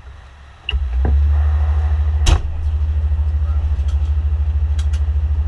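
Fire engine's diesel engine starting up, heard from inside the cab: it catches with a sudden rise less than a second in, then idles with a steady, deep, evenly pulsing rumble. A sharp knock comes a little past the midpoint.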